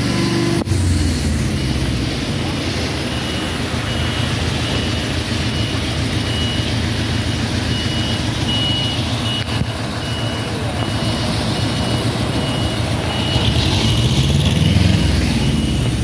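Heavy truck engine running under a road-transport load, with a warning beeper sounding in a steady run of evenly spaced high beeps. The engine grows louder about two seconds before the end.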